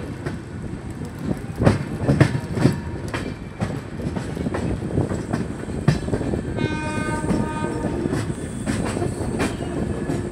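Passenger train running through a junction: steady rumble, with wheels clacking irregularly over rail joints and points. A train horn sounds for about a second and a half, roughly six and a half seconds in.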